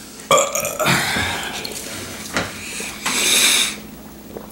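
A person burping, followed a couple of seconds later by a short hissing sound.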